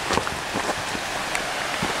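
Steady rushing of Linville River rapids, an even wash of water noise, with a few soft footsteps on a dirt trail.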